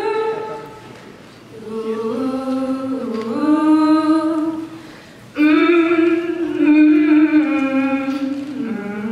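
A cappella vocal trio, one man and two women, singing close harmony in long held notes, in three phrases with short breaks between them.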